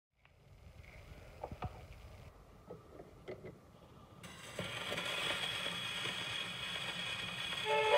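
Acoustic Victor Victrola gramophone: a low rumble from the running turntable, with scattered clicks and knocks as the soundbox is handled. About four seconds in, the needle is set down on the 78 rpm shellac record, bringing a steady hiss and crackle of surface noise. The first notes of the tango orchestra come in just at the end.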